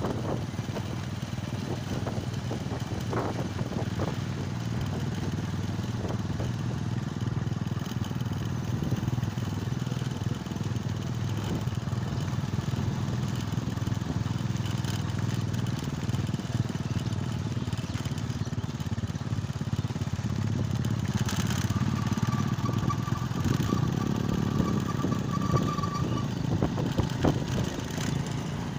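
Motorcycles running steadily at road speed, heard from the back of a moving bike: a low engine drone with road and wind noise.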